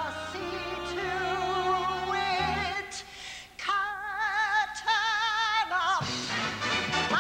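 A woman belting a Broadway show tune over a live orchestra, holding one long note with wide vibrato in the middle before the line moves on.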